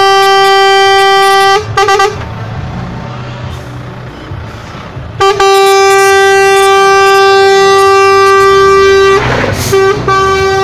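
Truck air horn blowing one steady tone. There is a blast of about a second and a half, two short toots, then a long blast of about four seconds, and another blast starts near the end. Diesel engines rumble low underneath, and a brief hiss comes about nine seconds in.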